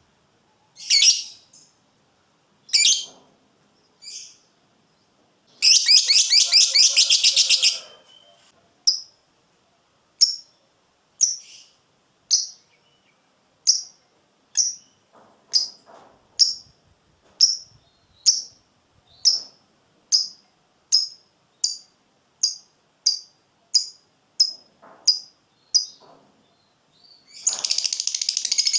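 Lovebird calling: sharp single chirps about a second apart, then a rapid chattering trill (the 'ngekek') lasting about two seconds. The chirps then come steadily faster and break into another long trill near the end.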